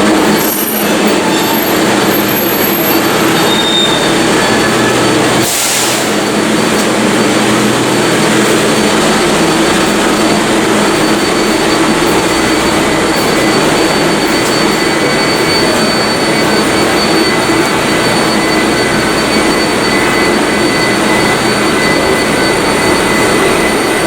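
Subway train running: a loud, steady rumble of wheels on rail with faint high, steady squealing tones, and a brief rush of noise about five and a half seconds in.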